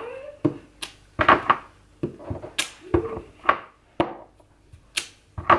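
Clear acrylic-block stamp with a photopolymer image being pressed down repeatedly onto card stock on a craft mat: about a dozen short, irregular taps, roughly two a second.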